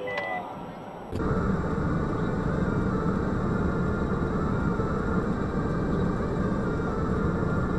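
Steady engine and cabin noise inside a car, picked up by a dashcam microphone, starting abruptly about a second in. Just before it, a short high beep.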